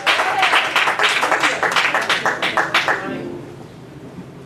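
Congregation clapping in a quick, steady rhythm, with a few voices calling out, stopping about three seconds in and leaving only the low hum of the hall.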